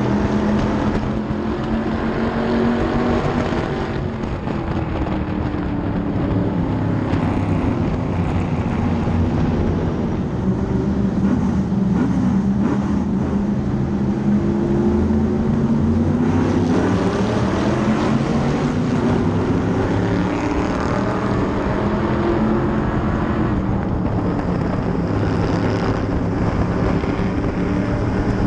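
Onboard sound of a modified race car's engine running at racing speed, its pitch repeatedly dipping and rising again as it laps the oval, with other race cars running close by.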